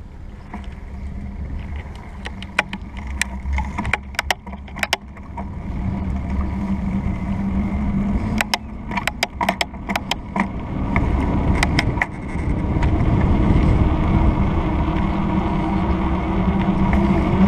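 Mountain bike rolling fast downhill: wind buffeting the microphone over a steady tyre rumble and hum, growing louder as the speed builds. Two clusters of quick rattling clicks from the bike come partway through.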